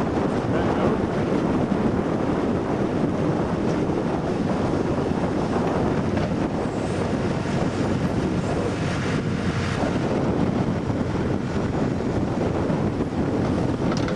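Steady wind rumbling and buffeting on the microphone.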